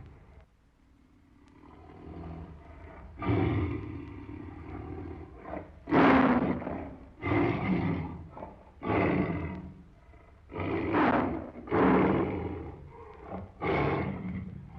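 Tiger roaring: a low growl builds in the first few seconds, then about seven loud, deep roars follow, roughly a second and a half apart, with growling between them.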